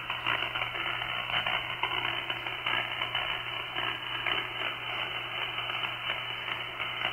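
Icom IC-756PRO transceiver's receiver putting out steady band noise on 6 metres: a fluttering hiss cut off sharply at the top by the receiver's narrow voice filter, with a low steady hum underneath and no clear voice in it.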